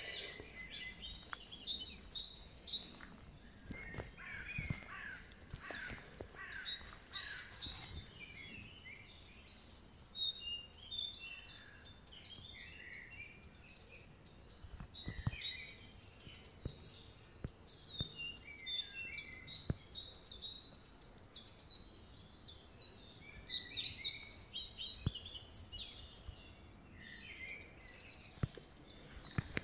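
Small birds chirping and singing throughout in quick, high, overlapping notes, with a few faint clicks.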